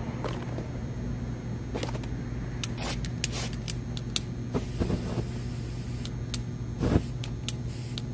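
A steady low hum with scattered sharp clicks; from about three to five seconds in, the high hiss of an aerosol spray can being sprayed onto a sneaker, and a single low thump near the end.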